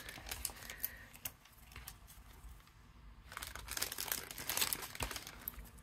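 Matte die-cut paper rose stickers being handled and set down on a table: light paper rustling with scattered soft taps, busiest about three and a half to five seconds in.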